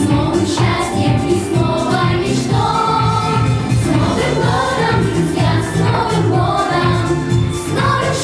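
A song playing: several voices singing together over an instrumental backing with a steady beat.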